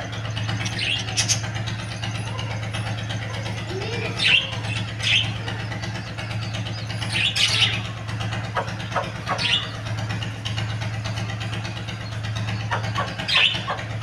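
Short, high budgerigar chirps, about six scattered through, over a steady low hum.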